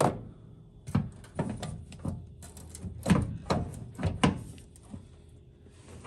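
Sharp metal clicks and knocks, about a dozen over the first four and a half seconds, from a pistol-wheel roller accelerator pedal assembly being fitted and worked by hand.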